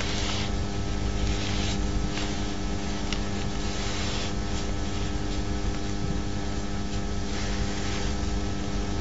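Steady electrical hum and low rumble of background noise, with a few soft swishes of a large calligraphy brush dragging across paper.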